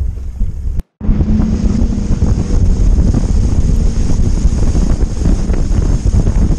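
Wind noise on the microphone, a split second of silence at a cut about a second in, then loud, steady wind buffeting the microphone of a jet boat running at speed, with the boat's engine and rushing spray underneath.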